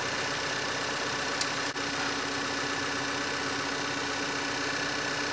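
A 2013 Volkswagen Tiguan's 2.0-litre turbocharged four-cylinder engine idling steadily, heard from beside the open engine bay.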